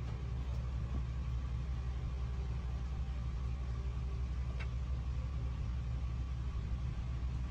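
Steady low background hum, unchanging throughout, with a faint click about four and a half seconds in.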